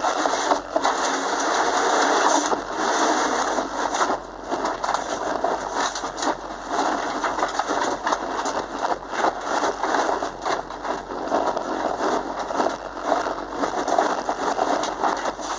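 Inside a Subaru Impreza on a loose dirt autocross course: the flat-four engine running hard under a dense, crackling rattle of gravel and mud thrown against the underbody and wheel arches.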